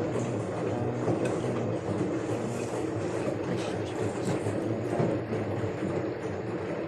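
LG inverter washing machine running, its drum turning with a steady rumble and light clatter, in the spin stage that this machine fails to complete because of a faulty pressure switch.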